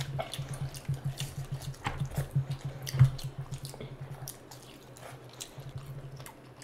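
Close-miked eating sounds: wet squelches and clicks of fingers mixing rice and curry, with chewing and lip smacks. One sharp click about three seconds in stands out, and the sounds ease off briefly after about four seconds.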